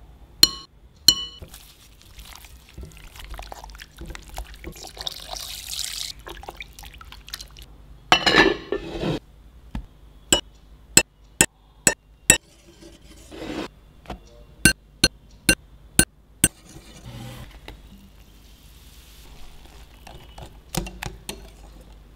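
Kitchen preparation sounds: a series of sharp clinks of utensils against dishes, most of them in a quick run through the middle, with short stretches of softer handling noise between.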